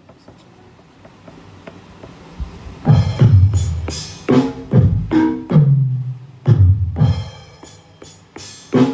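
Electronic percussion sounds from a Roland SPD-20 Pro being struck: quiet at first, then from about three seconds in a series of loud hits in uneven groups, each a tom-like drum sound whose pitch drops quickly.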